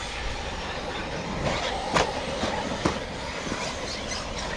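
Radio-controlled cars running in a race on a dirt track, a steady noisy rush of motors and tyres, with two sharp knocks about two and three seconds in.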